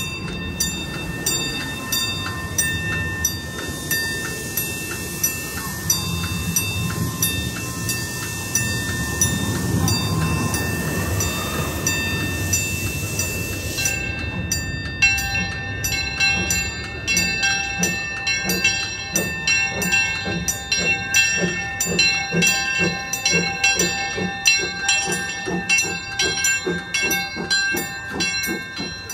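A railroad crossing signal's bell rings steadily at about two strikes a second, with a low rumble from a steam locomotive passing over the crossing. About halfway through, the bell becomes louder and clearer.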